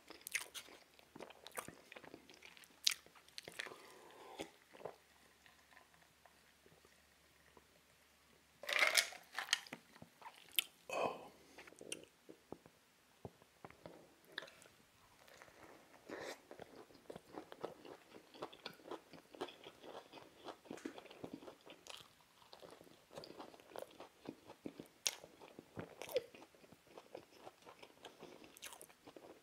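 Close-miked biting and chewing of a KFC Big Crunch fried chicken sandwich, the breaded chicken crunching in a run of small crackles, with the loudest bite about nine seconds in.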